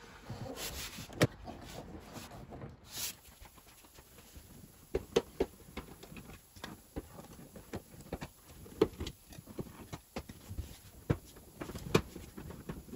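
Scattered clicks and knocks of hands handling a car's plastic interior trim, a door-sill panel being lifted free of its clips, then the rear seat cushion being pulled loose. The sharpest knocks come about a second in and then roughly every three to four seconds.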